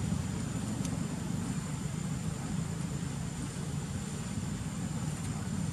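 Steady low rumble of outdoor background noise, with a faint continuous high whine above it.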